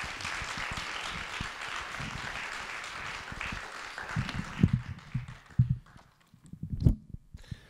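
Audience applauding, dying away about five seconds in, with a few short low thumps near the end.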